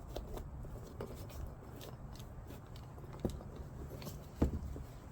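Scissors cutting a tag off a new sneaker, with light rubbing and handling clicks; two sharper snips about three and four and a half seconds in.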